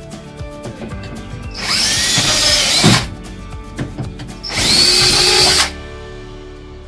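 Cordless drill drilling pilot holes into the cross member of a truck-bed storage system: two runs with a whining motor, the first about a second and a half in and lasting over a second, the second a shorter one about four and a half seconds in.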